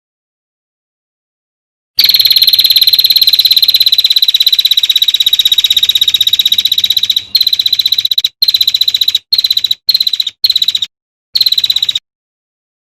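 Songbird giving a rapid, dense trill of fast-repeated high notes at a steady pitch. It starts after about two seconds of silence, runs for about five seconds, then breaks into short bursts with abrupt silent gaps between them.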